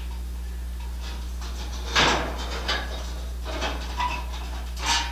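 Sheet-metal parts being shifted and handled: a few knocks and scrapes, the loudest about two seconds in, over a steady low hum.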